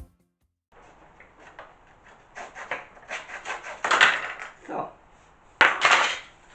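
A small junior hacksaw cutting through a thin wooden board in short, uneven strokes. About four seconds in the cut-off piece breaks free with a loud clatter, and near the end there are sharp wooden knocks as the pieces are handled and set down.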